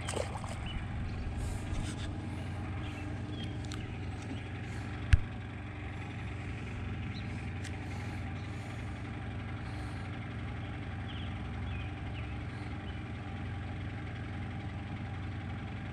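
A motor idling steadily, a low even hum, with one sharp click about five seconds in.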